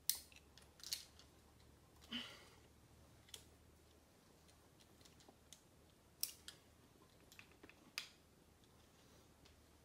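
Faint, irregular sharp clicks and scuffs of a climber moving on rock: shoes and hands on the rock and gear on the harness, about half a dozen spread unevenly, the loudest near the start and about six and eight seconds in.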